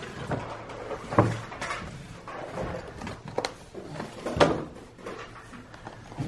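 Scattered light knocks and clicks of plastic toys and packaging being handled, a few sharper taps among them.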